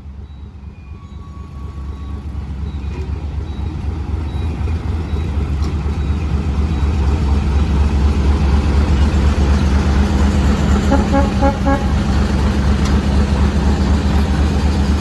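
Diesel-electric locomotive (D12E) with its diesel engine running, a steady low hum that grows louder over the first several seconds. About eleven seconds in comes a quick run of short toots.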